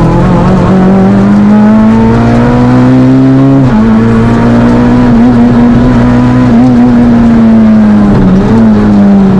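Fiat Panda Kit Car rally car's engine, loud under hard acceleration. It revs up steadily, drops sharply at an upshift nearly four seconds in, then holds roughly steady with a brief dip near the end.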